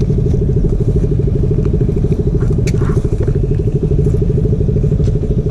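Hero XPulse 200's single-cylinder engine idling steadily close to the microphone, with a fast, even pulse. A light rustle of paper banknotes being handled sits on top.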